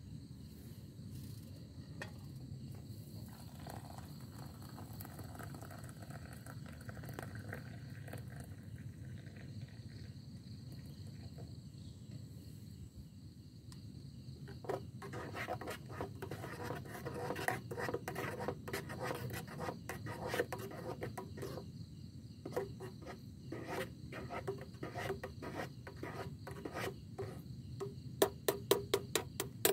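Faint steady insect chirring. About halfway in it is joined by louder irregular scraping and rubbing, and near the end by a quick run of ticks.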